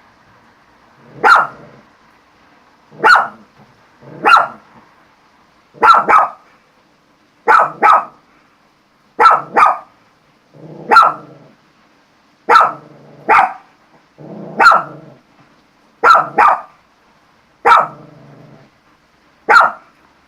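Dog barking repeatedly, a sharp bark or quick double bark about every one and a half to two seconds, several of them trailing off into a low growl.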